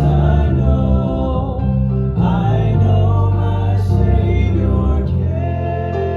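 Southern gospel music: held, changing chords with singing.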